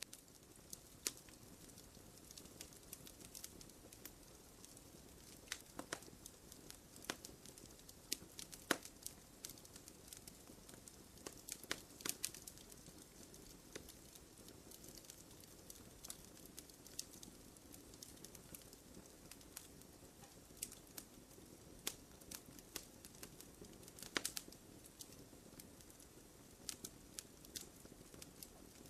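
Small campfire crackling softly: irregular sharp pops and snaps of burning wood over a quiet steady hiss, with a few louder pops scattered through.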